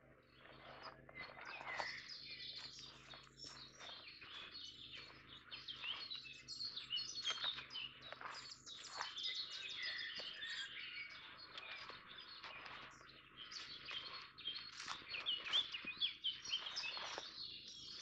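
Several woodland songbirds singing at once, a dense, overlapping chorus of high chirps, trills and short phrases with no pause.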